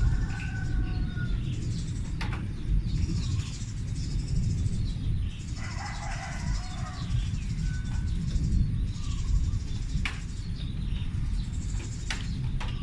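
A steady low rumble like far-off thunder that does not die away, its source unexplained. Birds chirp over it, with a few sharp clicks.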